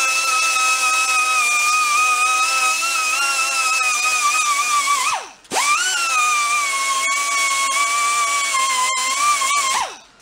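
Die grinder with a small abrasive disc grinding down a weld on a steel bracket, a high steady whine that sags a little in pitch under load. It stops about five seconds in, starts again at once with a brief rise in pitch, and runs until near the end.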